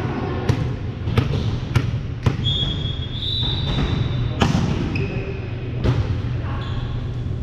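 A volleyball bounced on a hardwood gym floor four times, about every half second, then struck hard by a jump serve about four and a half seconds in, with two more ball impacts after it. A steady low hum runs underneath, and a high steady tone is held for about two seconds before the serve.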